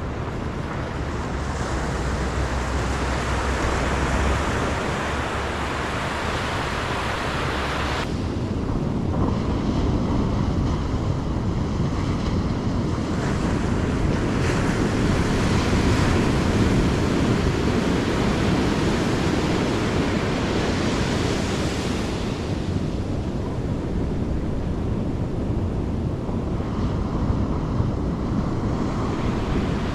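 Ocean surf breaking and washing up a sandy beach, a steady roar of water with wind on the microphone. The high hiss thins abruptly about eight seconds in.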